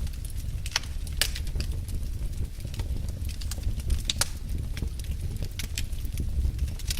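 Wood fire crackling in a fireplace: irregular sharp pops and snaps over a low steady rumble of the flames.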